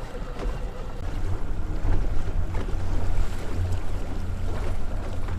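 Boat motor running steadily at trolling speed, a low hum, with wind buffeting the microphone and water noise.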